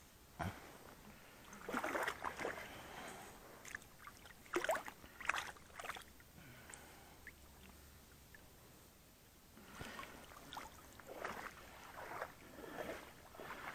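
Shallow water splashing and sloshing in irregular bursts as a landed rainbow trout is handled at the water's edge, with a few sharp splashes among them.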